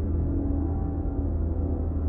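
Dark ambient music: a steady low drone with long held tones above it.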